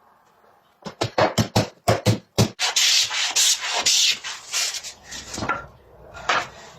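Wood being worked by hand with rubbing, abrasive strokes. About a second in comes a run of quick short strokes, then one longer continuous rub, then slower, softer strokes.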